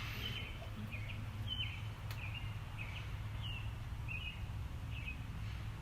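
Baby birds (nestlings) cheeping, a short thin high cheep repeated roughly every half second, over a faint steady low hum.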